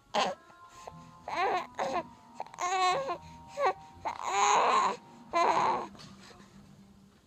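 A baby's voice making about half a dozen short, high-pitched vocal noises, including a fast warbling one about three seconds in, imitating car sounds.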